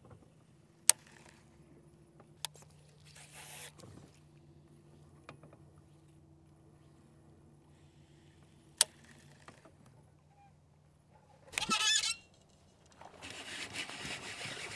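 A hooked largemouth bass splashing and thrashing at the water's surface in the grass near the end, after a short loud sound about twelve seconds in as the hook is set. Before that, a faint steady hum with two sharp clicks.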